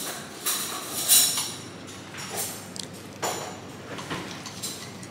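Cutlery clinking and scraping against a plate in a few short, sharp strokes, the loudest about a second in.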